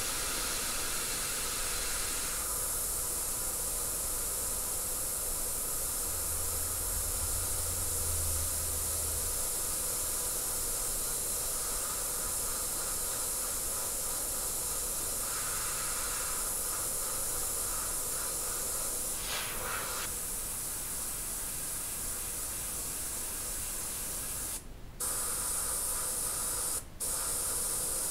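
Airbrush spraying white paint: a steady hiss of air, which stops briefly twice near the end.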